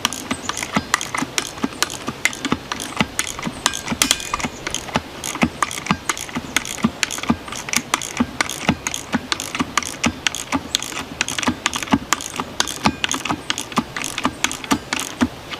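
A 1/2-inch drive Cornwell socket ratchet clicking fast and steadily as its handle is worked back and forth, running a large lag bolt down into a wooden stump.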